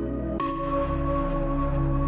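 Ambient background music of sustained tones. A new chord with a bright attack comes in about half a second in.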